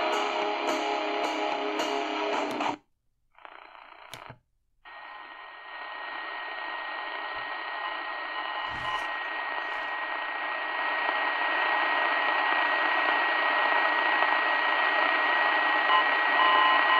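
Tecsun PL-450 portable radio's speaker: music from an FM station for the first few seconds, cut off as the radio switches bands, then long-wave static hiss that slowly grows louder. A faint steady tone from an airport beacon runs through the static.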